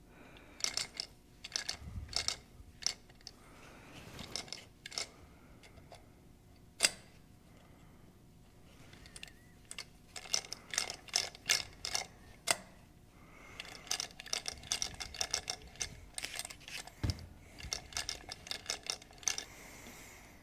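Socket ratchet clicking in quick runs of ticks, on and off, during disassembly of a Lucas CAV DPA diesel injection pump, with one sharper metallic click about seven seconds in.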